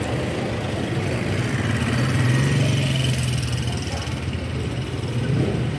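Street traffic: a car's engine hum passing close by, swelling about two seconds in and then easing off.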